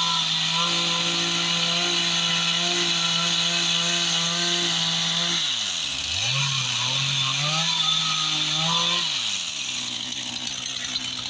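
Two-stroke chainsaw running at high revs. It drops sharply about halfway through, revs back up a second later and holds, then falls away near the end.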